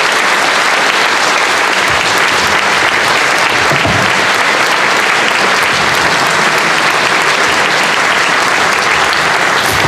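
Audience applauding steadily, sustained clapping from a hall full of people.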